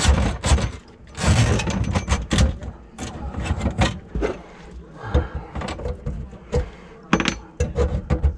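Irregular knocks and clatter of hand work in the cabinet under a kitchen sink, around a plastic bucket set beneath the drain, with a noisier scraping burst about a second in.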